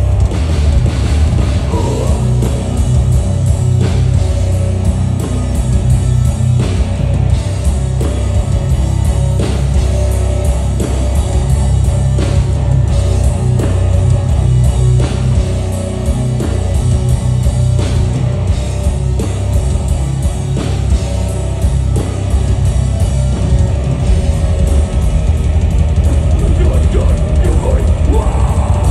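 Death metal band playing live through a large stage PA: heavily distorted electric guitars, bass and a pounding drum kit, heard from the crowd with a booming low end.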